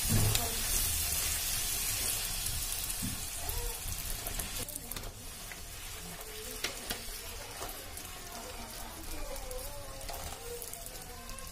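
A puri deep-frying in hot oil in an iron kadai, sizzling steadily, louder for the first few seconds and then settling lower, with a few light clicks.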